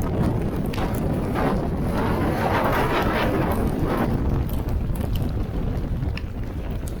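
Strong wind buffeting the microphone in a steady low rumble, with a stronger gust about two to four seconds in.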